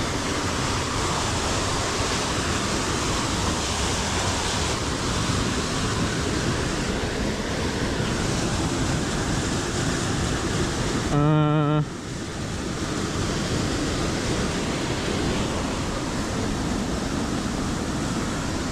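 Waterfall rushing: a steady, even roar of falling water. About eleven seconds in there is a brief wordless vocal sound.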